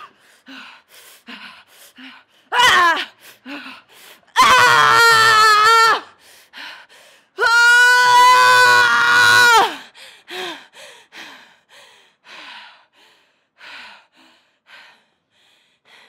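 A woman's strained screams, a performed impression of Wolverine's battle yells. There is a short falling yell about two and a half seconds in, then two long, held screams of about one and a half and two seconds. Between and after them come short, sharp breaths and gasps.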